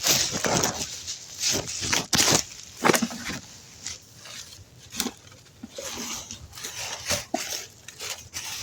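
Hands rummaging through a bag of scrap electronics: irregular rustling, with knocks and clicks of cables and hard parts shifting against each other.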